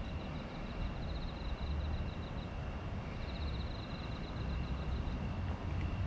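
Night insects trilling in quick, high pulsed runs of about two seconds each, over a steady high tone and a low outdoor rumble.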